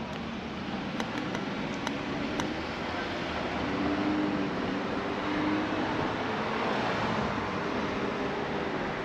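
Steady rush of wind and road noise from a bicycle ride along a city street, with a low hum of traffic. A few faint clicks come between about one and two and a half seconds in.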